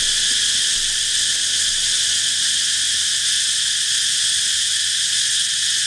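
Loud, steady chorus of forest insects: a continuous shrill buzz high in pitch, with no break.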